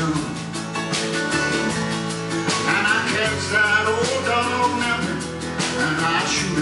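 Live country-rock band music led by acoustic guitar, playing steadily throughout, with a melody line that bends in pitch.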